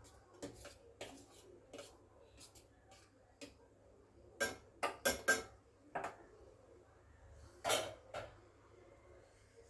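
A spoon knocking and scraping against a cooking pan and bowl while the filling is added and stirred. It starts as a string of light taps, then a louder cluster of knocks about four and a half seconds in, and a longer, louder scrape near the end.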